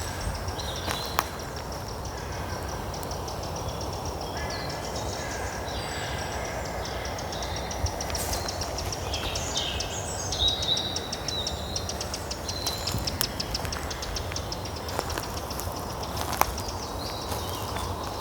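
Small birds chirping and trilling on and off, with short high calls and quick rattling trills, over a steady low outdoor rumble. A few sharp knocks stand out, one about a second in and one near the end.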